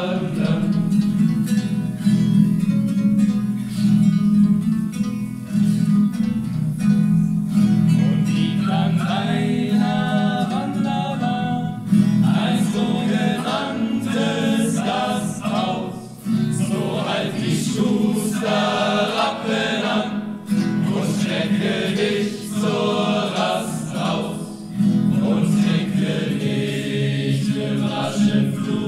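A group of boys singing a song together, accompanied by a strummed acoustic guitar.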